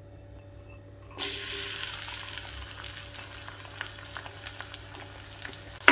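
Crushed garlic cloves drop into hot oil in a metal kadai and start sizzling about a second in. A steady crackling hiss follows, with scattered pops.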